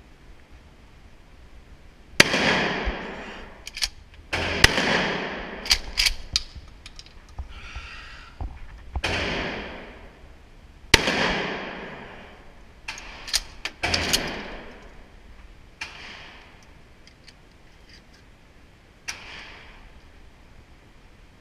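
Gunshots echoing through an indoor shooting range: five loud reports, each with a long reverberant tail, spread unevenly over the first fourteen seconds, then two fainter ones. Short sharp clicks fall between them.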